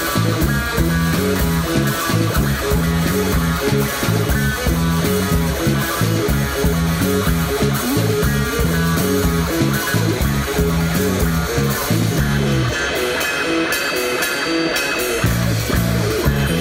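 A rock band playing an instrumental passage: drum kit, bass guitar and electric guitar in a repeating groove. The bass line drops out for about two seconds near the end, then comes back in.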